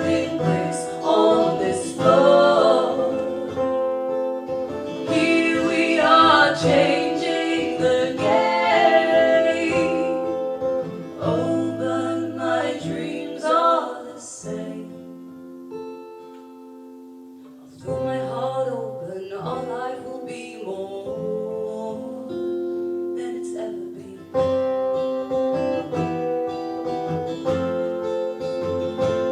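Live acoustic folk song: acoustic guitar with singing. About halfway through it drops to a quiet held chord, then builds back up.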